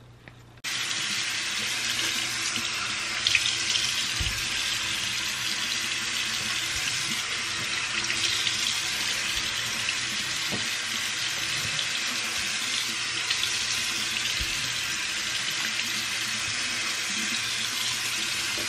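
Bathroom sink tap turned on about half a second in and left running, water splashing steadily into the basin while a face is washed under it, with a few soft knocks.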